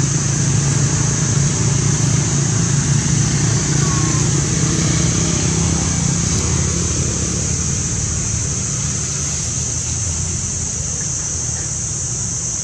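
Motor vehicle engine running nearby, a low steady hum that fades over the second half, over a constant high-pitched hiss.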